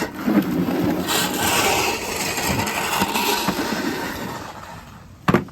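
Snow shovel scraping and pushing through deep fresh snow, with a sharp knock near the end.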